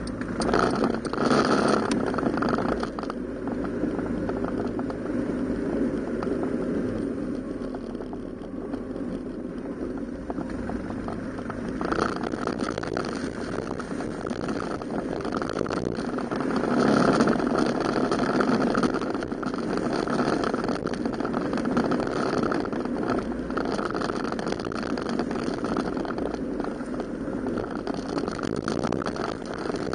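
Yamaha Cygnus X 125 cc scooter's single-cylinder engine running as it is ridden, with wind and road noise. The sound grows louder briefly near the start and again a little past the middle.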